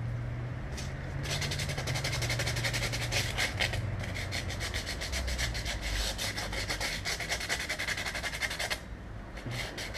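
Sandpaper rubbed by hand around the inside of a metal headlight reflector: quick back-and-forth scratching strokes, roughing the reflective coating off down to bare metal so it will take solder. The sanding starts about a second in, breaks briefly near the middle and stops shortly before the end.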